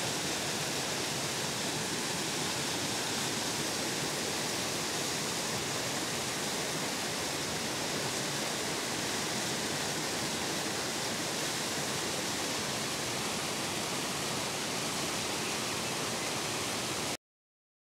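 Small waterfall cascading down a rocky channel: a steady rushing of water that cuts off suddenly near the end.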